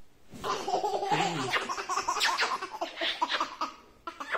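A young child laughing in short, repeated bursts that start about half a second in and die away near the end.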